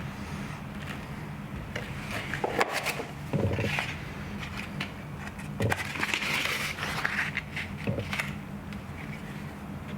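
Drywall knife scraping joint compound, with scattered short knocks and scrapes, the longest stretches of scraping a few seconds in and again past the middle. A low steady hum runs underneath.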